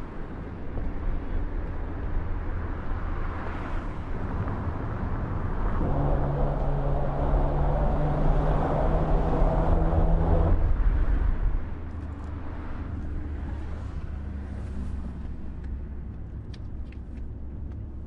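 Vehicle tyres running over a steel grated bridge deck: a continuous low rumble. For about five seconds from around six seconds in, a steady humming drone rises over it and is at its loudest, then it drops back to the rumble.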